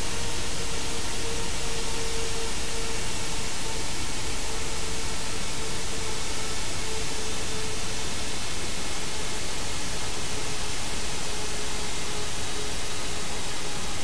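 GEnx high-bypass turbofan jet engine winding down: a steady, dense rush of noise with a prominent hum that sinks slowly in pitch, and fainter whining tones above it.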